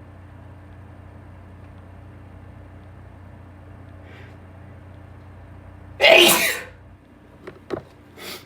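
A man sneezes once, loudly, about six seconds in, a sneeze brought on by pepper. A few brief quieter sounds follow near the end.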